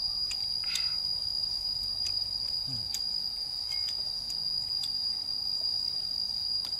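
Insects trilling in the grass: one unbroken, steady, high-pitched drone. A few faint clicks sound over it.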